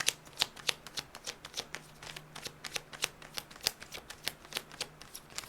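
A tarot deck being shuffled by hand: a quick, uneven run of crisp card flicks, several a second.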